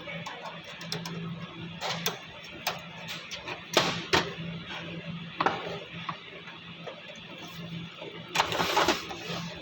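HP LaserJet M202dw laser printer sounding with a steady low hum and scattered sharp clicks, then a short rustling burst near the end.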